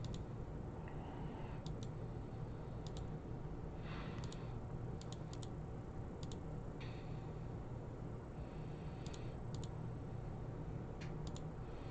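Scattered computer mouse clicks, often in quick pairs, while the computer is being adjusted to fix a glitching screen, over a steady low hum.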